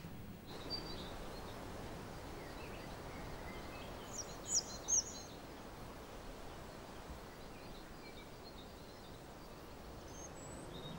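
Outdoor ambience: a steady background hiss with small birds chirping now and then, a few brighter high chirps about four to five seconds in.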